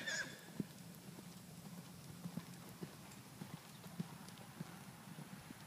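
Hoofbeats of a young Oldenburg gelding cantering on a sand arena: faint, uneven thuds through the soft footing.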